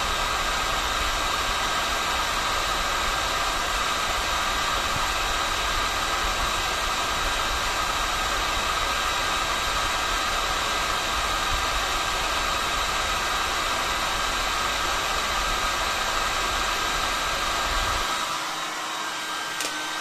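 Electric hot-air gun blowing steadily while heating plastic to melt it, a continuous hiss with a faint whine. About eighteen seconds in, the low rumble drops away and it gets slightly quieter.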